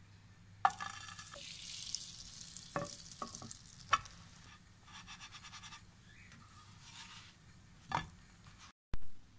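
Fat sizzling in a nonstick frying pan as a slice of bread is laid in and toasted, with several sharp clicks and knocks against the pan and a louder knock near the end.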